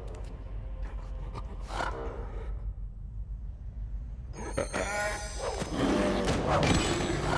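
Cartoon polar bear's wordless vocal sounds: a short utterance about two seconds in, then a longer excited run of gasps and cries from about four and a half seconds in, loudest near the end. A high glittering chime rings as that run starts, with faint music underneath.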